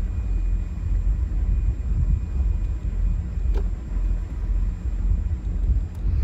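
Motor cruiser underway: a steady low rumble of the engine and wind buffeting the microphone.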